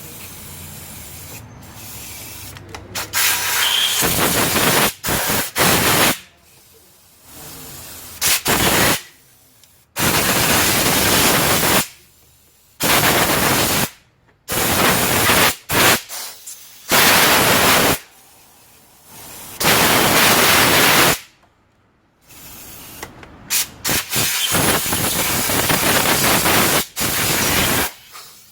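Repeated loud bursts of hissing spray, each from a fraction of a second to about four seconds long, starting and stopping abruptly with short pauses between.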